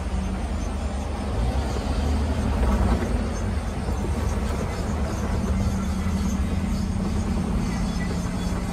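Road traffic: cars and pickup trucks driving past one after another, a continuous low rumble of engines and tyres.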